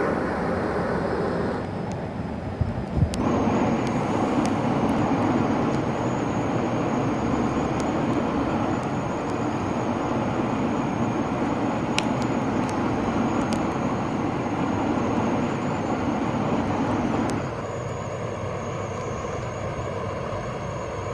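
Steady engine-like drone with a faint high whine that sets in about three seconds in; the sound drops slightly in level near the end.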